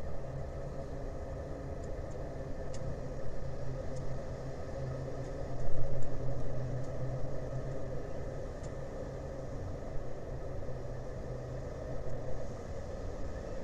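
Steady low hum of a running engine with a held low tone, swelling briefly about halfway through, with a few faint clicks; the low tone drops away near the end.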